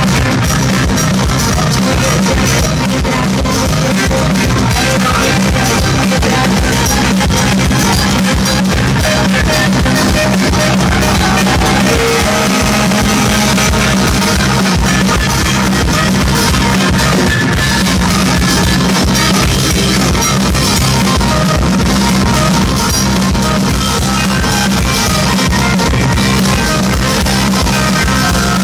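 Live rock band playing loud and steady: drum kit, electric bass and saxophone, with a female singer.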